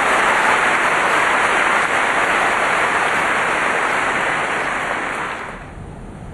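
Tennis stadium crowd applauding, a steady wash of clapping that drops off sharply about five and a half seconds in to a low crowd murmur.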